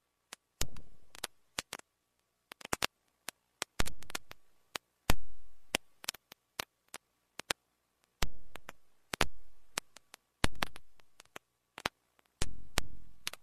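Sparse electronic intro sound design: isolated sharp hits, each fading away over about a second, at uneven intervals among short glitchy clicks.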